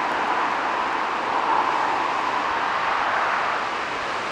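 Boeing 737's twin jet engines running at taxi power, a steady rushing whine.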